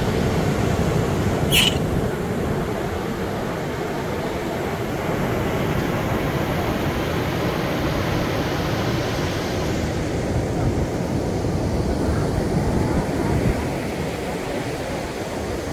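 Ocean surf breaking on a sandy beach, a steady rushing noise. A short high-pitched sound stands out briefly about a second and a half in.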